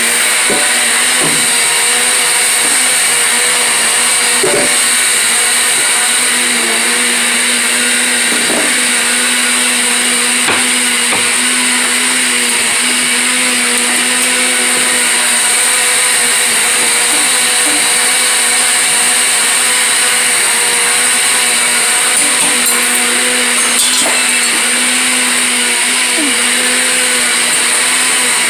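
Countertop blender motor running steadily, liquefying a jar of chopped vegetables and water into juice.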